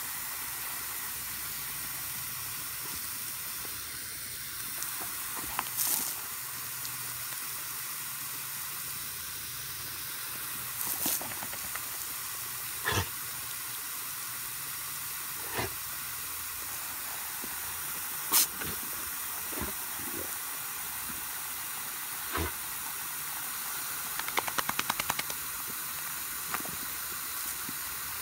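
Garden hose spray nozzle hissing steadily as its jet of water sprays out. Scattered sharp clicks and taps sound over it, with a quick run of them near the end.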